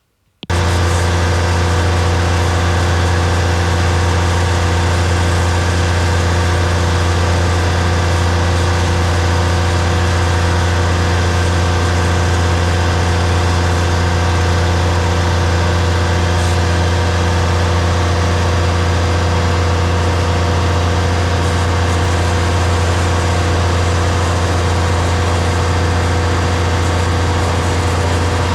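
DAF combi gully tanker's engine and pump running at a constant speed, a steady loud low drone with a hum of steady tones above it, as the truck powers its high-pressure jetting for clearing a blocked gully. It starts suddenly about half a second in.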